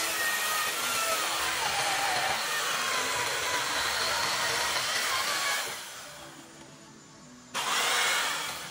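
Two-stroke petrol chainsaw cutting into a large hardwood stump, its engine pitch wavering under load. About six seconds in the sound drops away for a second and a half, then comes back abruptly at full strength.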